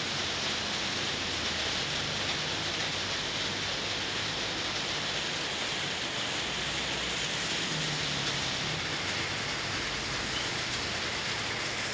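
Heavy rain pouring onto wet pavement, a steady hiss, with a faint low hum of passing vehicles now and then underneath.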